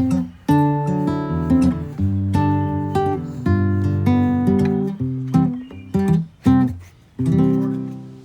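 Acoustic guitar music: strummed chords and plucked notes, the last chord dying away near the end.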